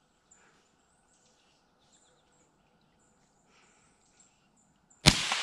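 Quiet woods with faint high chirps, then a single sudden rifle shot near the end that echoes and dies away slowly through the trees.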